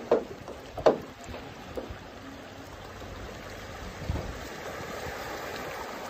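Small sea waves lapping and splashing among shoreline rocks. Two sharp slaps of water come in the first second, then a steady wash of water.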